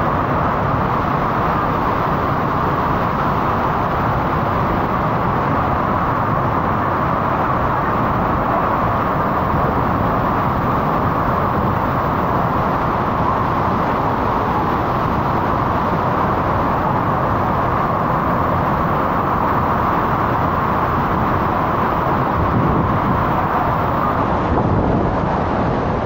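Iguazú Falls at close range: a loud, steady rush of falling water that stays the same throughout.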